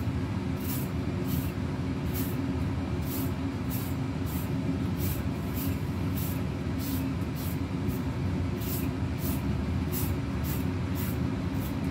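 Knife peeling strips of skin off a white daikon radish: a crisp scraping swish with each stroke, about two strokes a second, over a steady low hum.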